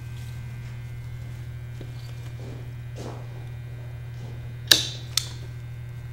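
Two sharp snips of hand pruning shears cutting evergreen boughs, about half a second apart, with faint rustling of the greens, over a steady electrical hum.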